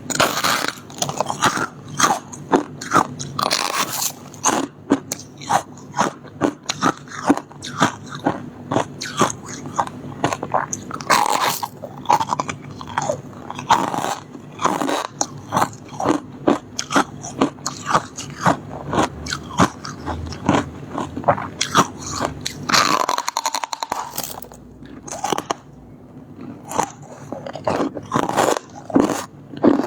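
Close-miked biting and chewing of soft, crispy shaved freezer-frost ice: a quick run of sharp crunches, with a short lull about three-quarters of the way through before the crunching resumes.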